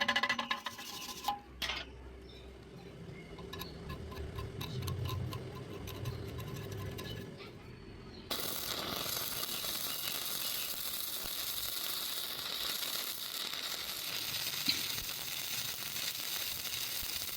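A welding arc strikes suddenly about eight seconds in and then burns with a steady, even hiss as a flat fillet weld is run. Before that there are only faint clicks and light handling noise.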